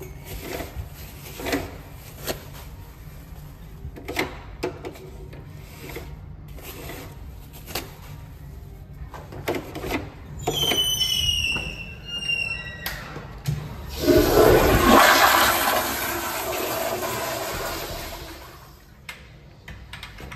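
Commercial toilet's chrome flushometer valve flushing: a loud rush of water starts about fourteen seconds in and dies away over about four seconds. Before it come small knocks and clicks and a few high, falling squeaky tones.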